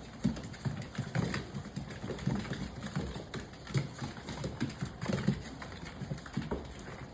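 XXL bully puppies growling and chewing as they bite and tug at a piece of raw chicken, in short, irregular low rumbles.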